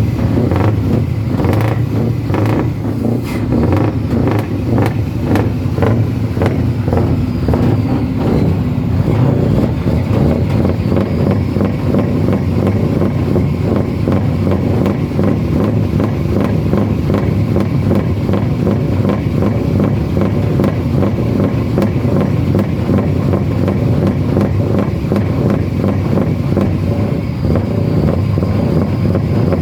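Truck's diesel engine running, its exhaust pulsing in a steady rapid beat; the beats come more spaced out in the first several seconds.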